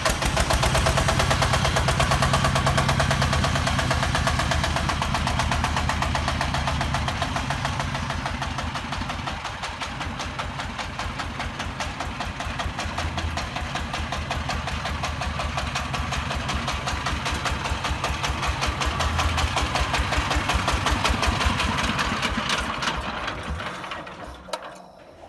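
Engine of a self-loading concrete mixer running with a rapid, even beat. It fades out near the end.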